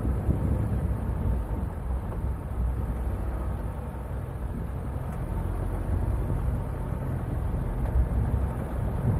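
Renault Koleos driving off-road on sand: a low, steady engine rumble mixed with wind buffeting the microphone.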